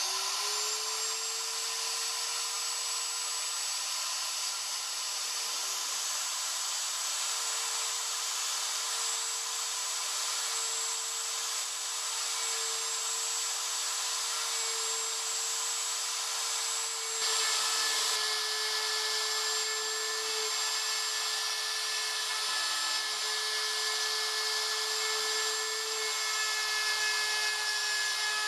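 CNC router spindle, a wood router on the machine's gantry, spinning up to speed and then running with a steady high whine as it cuts a mortise in a wooden board with a quarter-inch straight bit. About 18 seconds in, the sound gets a little louder and drops slightly in pitch as the bit works into the wood.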